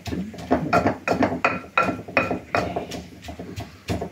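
Wooden pestle pounding in a bowl, mashing ingredients for gazpacho majado: a run of sharp knocks about three a second, some with a short ring from the bowl.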